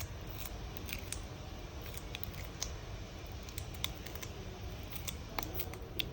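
Scattered small clicks and taps of a smartphone's inner cover being fitted and pressed into place, over a steady low hum.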